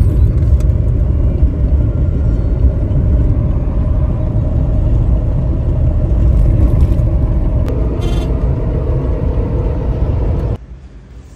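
Steady low rumble of a car's engine and tyres on the road, heard from inside the moving car's cabin. It cuts off suddenly near the end.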